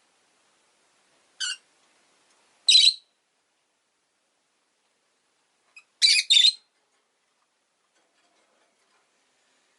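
Rosy-faced lovebird giving short, high-pitched calls. A faint one comes first, then a louder one, then a quick pair a few seconds later.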